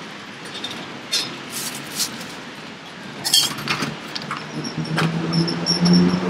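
Street traffic, with a vehicle engine humming steadily and growing louder over the last second and a half, over scattered sharp metallic clinks and taps.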